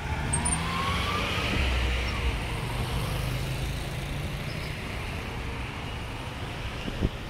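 City street traffic: cars and motorcycles driving past close by, with engines running and tyre noise. One engine rises in pitch within the first second. There is a single sharp click near the end.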